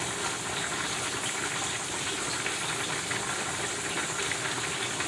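Steady hissing noise that holds even throughout, with no clear rhythm or single strike.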